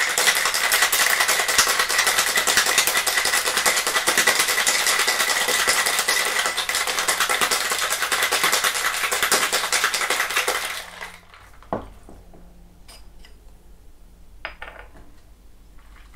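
Ice rattling hard inside a metal cocktail shaker as it is shaken vigorously for about eleven seconds, then the shaking stops. A few light knocks and clinks follow.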